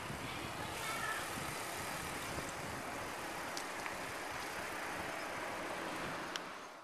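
Steady rushing noise of a bicycle coasting downhill: air rushing past and tyres rolling on asphalt, with a couple of faint ticks.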